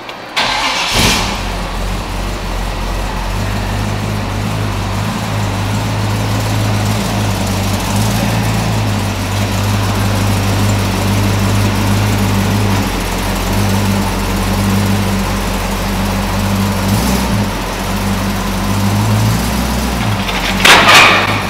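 1950 Chevy pickup's engine starting up about half a second in and settling into a steady idle. A brief loud burst comes near the end.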